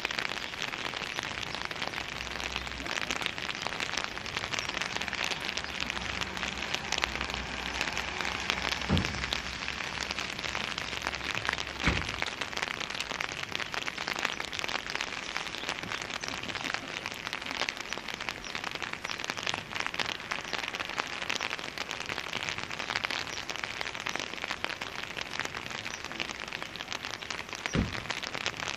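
Steady light rain pattering and crackling on wet pavement. A few dull thumps stand out, about 9 and 12 seconds in and near the end.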